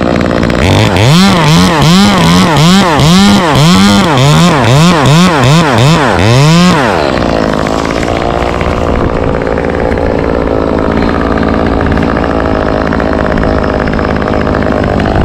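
Two-stroke chainsaw cutting a live oak limb, its engine revving up and down about ten times over six seconds. About seven seconds in its pitch drops away, and a steadier, quieter noise remains.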